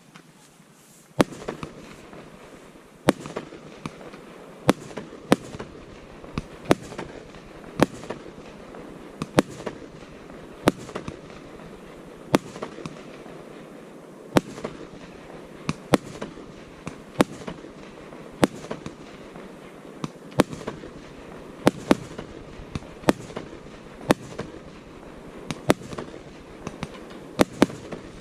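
Fireworks display with many sharp bangs of exploding shells, irregularly spaced at roughly one to two a second, over a continuous hiss. One bang comes at the very start, and the steady barrage sets in about a second later.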